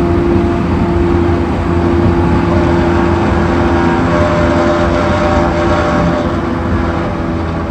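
JR East E231-1000 series commuter train running, heard inside the car: a steady rolling rumble with sustained humming and whining tones over it, which the uploader calls an abnormal noise (異音).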